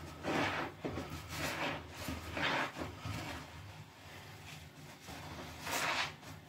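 Heavily foamed sponge, soaked in cleaner, dish soap and soapy water, squeezed by hand: several wet, squelching squishes of foam and liquid, with a quieter pause in the middle and another squeeze near the end.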